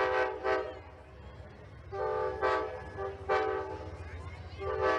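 Amtrak locomotive horn sounding a chord in a playful horn show: about five blasts, mostly short toots with one longer blast about two seconds in, over a steady low rumble.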